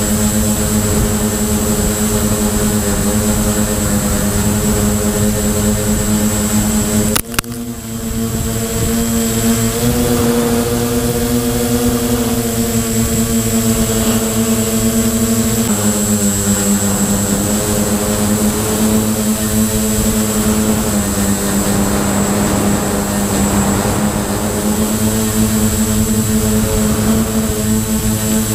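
FPV quadcopter's four brushless motors (Multistar 2213-980) spinning 9x4.7 Gemfan props, a steady multi-tone hum with a high whine above it, the pitch shifting with throttle around ten and sixteen seconds in. A sharp click with a brief drop in the sound about seven seconds in.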